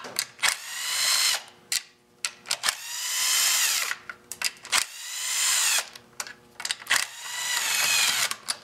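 Cordless drill/driver with an 8 mm socket backing out the recoil-starter bolts on a Honda GX31 engine, in about four short runs. Each run winds up, gets louder, then stops, with small clicks of the socket and bolts between them.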